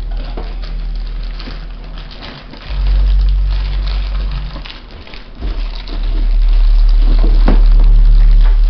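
Plastic bag crinkling and rustling as it is handled and opened. A loud low rumble comes in about three seconds in and again for the last few seconds, louder than the crinkling.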